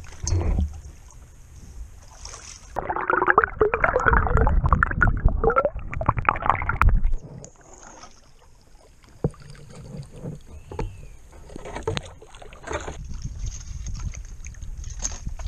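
Kayak paddles splashing in shallow water, with a loud churning of water right at the microphone for about four seconds, a few seconds in, as it dips to the surface. After that come quieter drips, small splashes and knocks of paddle strokes.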